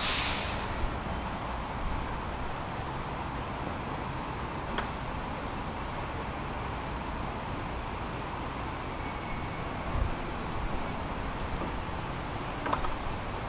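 A tram running along its line, heard from on board as a steady rumble and hiss. A short hiss at the very start, a couple of sharp clicks and a low thump come through over it.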